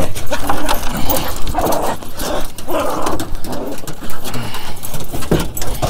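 Miniature Australian Shepherds whining in short soft bursts, with a rising-and-falling whine near the end. Their claws click and scrabble on the truck's plastic bed liner throughout.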